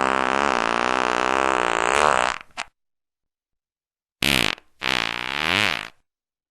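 Fart sound effects: a long, wavering fart ends about two and a half seconds in. After a pause come a short fart and then a longer one whose pitch dips and rises again.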